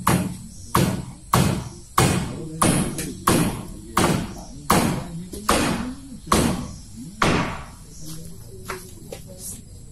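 Hammer striking wood in a steady series of heavy blows, about one and a half a second, each with a short ring, then a few lighter taps near the end.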